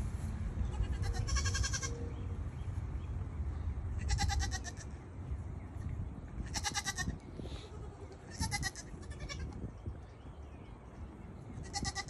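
Goats bleating: about five short, wavering bleats a couple of seconds apart.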